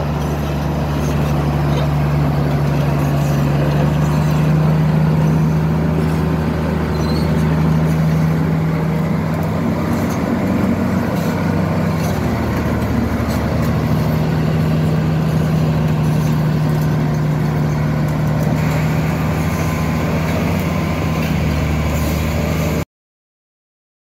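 Komatsu D155A bulldozer's six-cylinder diesel engine running steadily with a deep hum, its pitch shifting slightly around the middle, then cut off suddenly near the end.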